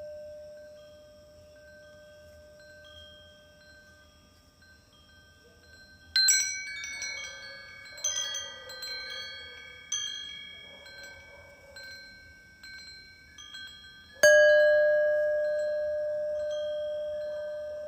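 Wind chimes tinkling, a cluster of high ringing strikes from about six seconds in, then a single louder bell-like strike about fourteen seconds in whose deep tone rings on and fades slowly.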